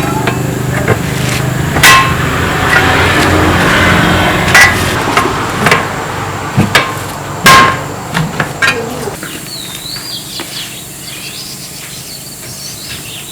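Hammer blows on metal, five or so sharp strikes a second or two apart, each leaving a brief ringing tone. They sound over a steady mechanical drone that stops about nine seconds in.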